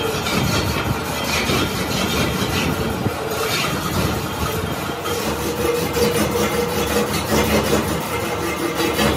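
Metal lathe running, with an alloy wheel rim spinning in its chuck: a steady mechanical running noise with a faint steady hum.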